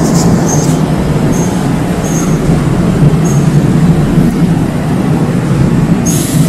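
Steady low hum and rumble of light-rail trains standing at the platform, with short high chirps every second or so.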